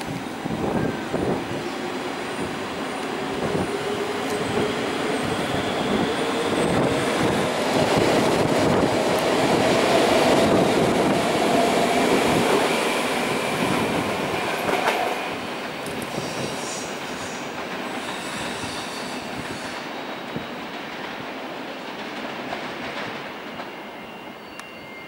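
NS VIRM double-deck electric train pulling away and accelerating: a whine rising steadily in pitch over the rumble of wheels on rail, loudest about ten seconds in, then fading as it runs off. Short high wheel squeals come about two-thirds of the way through.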